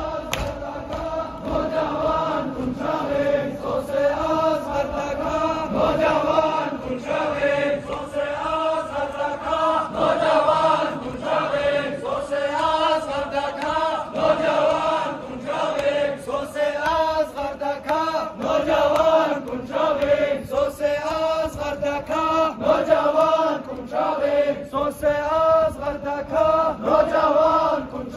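A large crowd of men chanting a Muharram mourning lament together, in a swaying unison, with rhythmic hand slaps of chest-beating (matam) running through the chant.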